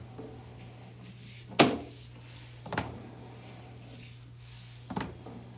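Three sharp clunks from sewer inspection camera gear as its push cable is reeled back, the loudest about one and a half seconds in and the others near three seconds and near the end, over a steady low electrical hum.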